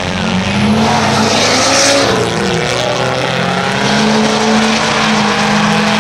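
A pickup truck and a car launching off a drag strip start line and accelerating away down the track, their engines revving hard. About half a second in the sound grows louder, and the engine pitch climbs and dips around two seconds in before settling into a steady run.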